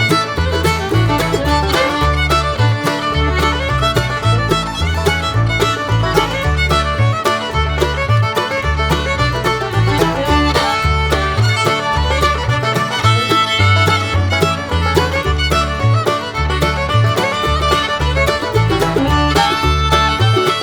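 Background music: an upbeat fiddle tune over a bouncing bass line.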